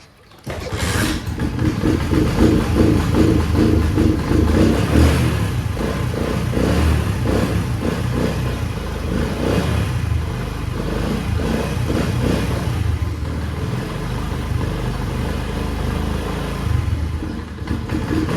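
Honda CD70's single-cylinder four-stroke engine catching about half a second in on a cold start, then idling with an uneven "bal bal bal" beat because the engine is still fully cold.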